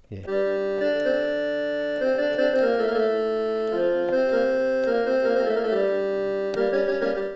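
M Studio MS41 mini keyboard playing its harmonium voice: a slow tune of held notes with several sounding together, changing about every second.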